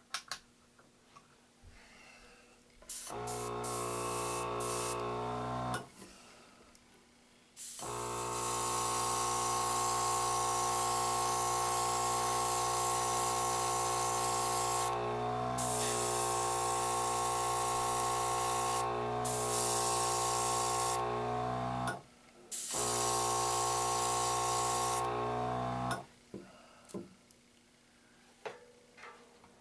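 Airbrush and its small compressor running in three stretches: a steady motor hum with a loud hiss of air and paint spraying. The hiss cuts out briefly a few times in the long middle stretch while the hum goes on, as the airbrush trigger is let off.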